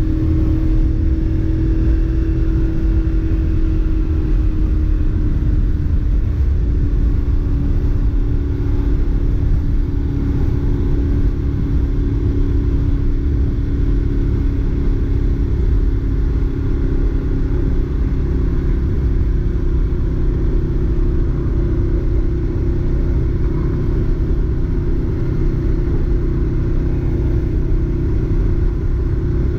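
2011 Ducati Monster 696's air-cooled L-twin engine through its stock exhaust, heard from the rider's seat while cruising at a steady speed. The engine note eases down slightly a few seconds in and climbs a little past the middle.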